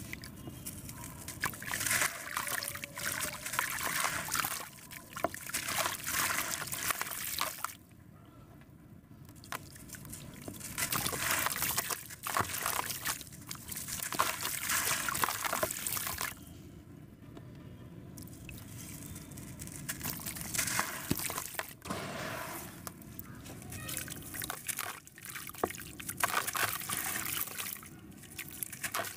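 A gritty sand-and-cement chunk crunching and crumbling in the hands, its grit and crumbs trickling and splashing into a bucket of water. The crumbling comes in bursts with short pauses between them.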